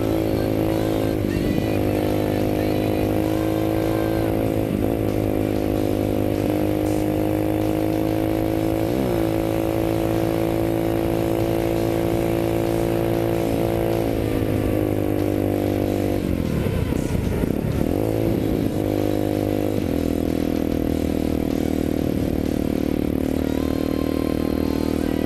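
A 250 cc motorcycle engine running steadily on the road. Its pitch dips and recovers briefly several times, most of all about two-thirds of the way through.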